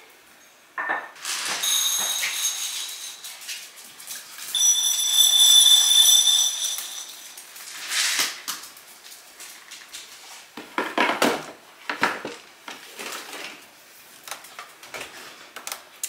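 Kitchen clatter of dishes and cutlery being handled, with knocks from cabinets and drawers. Twice in the first half there is a high, steady ringing squeal, the second one the loudest sound, then scattered knocks.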